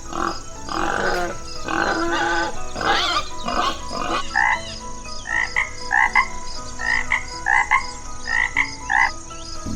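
A chorus of frogs croaking, many calls overlapping. From about halfway on, one short call repeats about twice a second over a steady, fast, high-pitched pulsing.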